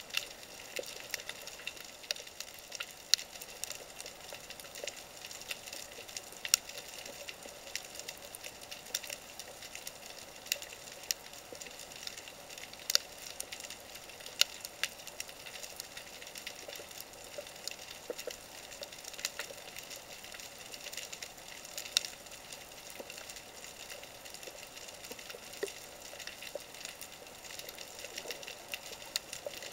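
Underwater crackle of a rocky sea bed, heard through a camera's housing: a steady hiss dotted with many sharp, irregular clicks, a few of them louder.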